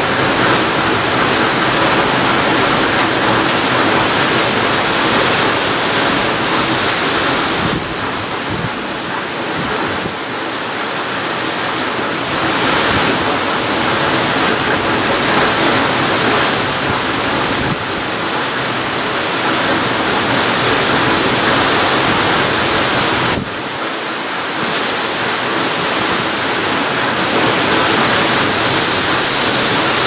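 Typhoon storm of strong wind and heavy wind-driven rain: a loud, steady rushing noise that eases briefly twice, about a third of the way in and again after two-thirds, then builds back up in gusts.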